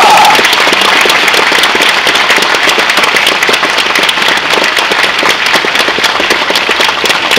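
Audience applauding, a dense steady clatter of many hands clapping. A held voice from the performers ends just at the start.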